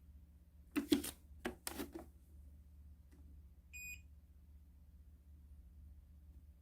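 Faint room hum with a quick run of four or five light knocks or clatters about a second in, then a single short electronic beep about midway.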